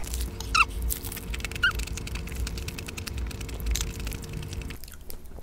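A crisp sheet of roasted seaweed crackling and rustling in the hands as a hand roll is folded and wrapped around rice and fillings: fine, irregular crackles.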